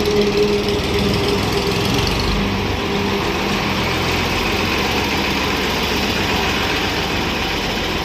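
Tractor engine idling steadily, with a hum over the rumble that fades out about three seconds in.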